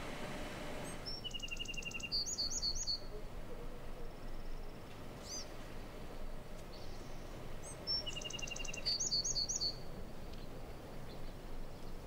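A songbird singing the same short song twice, about seven seconds apart: a fast high trill, a quick run of lower notes, then three or four sweeping notes. Steady outdoor background hiss underneath.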